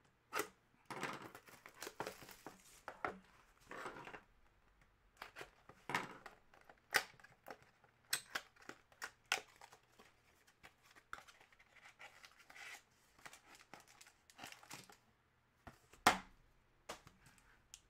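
Plastic shrink-wrap on a sealed trading-card box being slit with a folding knife and torn off, then the cardboard box being worked open by hand. It is an irregular run of tearing, crinkling and scratching with scattered sharp clicks, the sharpest one near the end.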